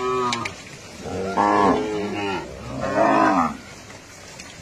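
Cattle in a moving herd mooing: several loud calls, one after another and some overlapping, a short one at the start and longer ones through the middle.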